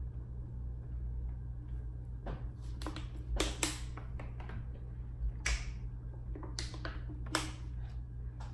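A thin plastic water bottle crackling and clicking as it is picked up, drunk from and put down: a dozen or so sharp snaps, crowded together in the middle, over a steady low hum.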